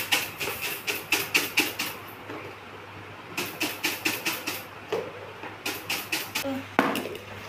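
Puffed rice with chopped onion rattling inside a bowl closed with a plate, shaken to mix it. It comes in runs of quick shakes, about five a second, broken by a pause about two seconds in and a shorter one near five seconds in.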